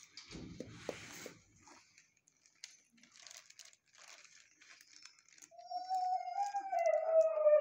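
Rustling and scuffling for the first second or so, then faint shuffling, and from about five and a half seconds in a dog gives one long, wavering whining howl that sinks slightly in pitch.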